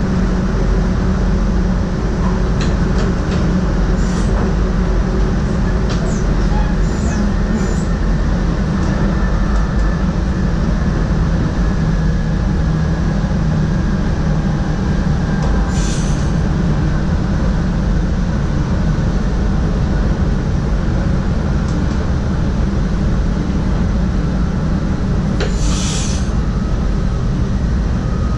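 Inside the cab of an NS SGMm Sprinter electric train on the move: a steady loud rumble of the running gear on the track. A few brief high-pitched squeals or hisses cut in, the strongest about halfway through and near the end.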